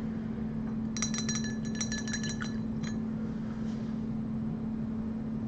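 A quick run of light clinks with a bright, glassy ring, lasting about two seconds from about a second in, over a steady low hum.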